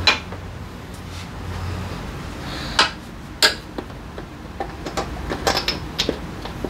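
Metal hand tools clinking and knocking during a spark plug change on a scooter engine: three sharp knocks, then a run of lighter clicks near the end, over a steady low hum.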